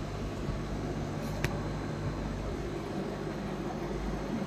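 Steady low hum and hiss of aquarium aeration, with one light click about a second and a half in.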